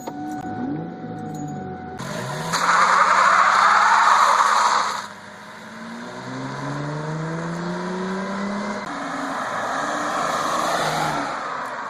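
Car engine accelerating, its pitch climbing twice as it pulls away, with a loud rushing noise for about two and a half seconds a few seconds in.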